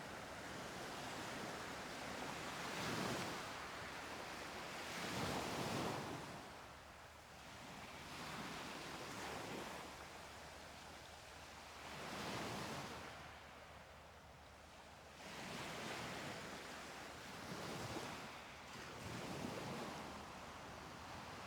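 Ocean surf breaking on a beach: waves wash in and fall back every few seconds, about seven surges over the stretch, with a steady hiss of water between them.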